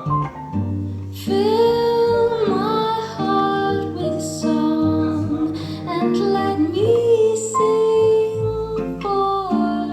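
A recorded song played back through an Altec 612C speaker cabinet with a 416-8Z woofer and a 311-60 horn: a woman sings over guitar accompaniment, her voice coming in strongly about a second in.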